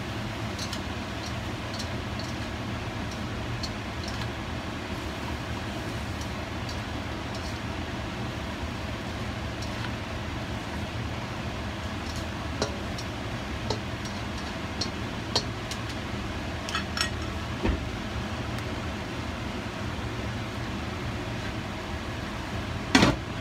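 Steady low mechanical hum, with scattered light clicks partway through and a louder knock near the end.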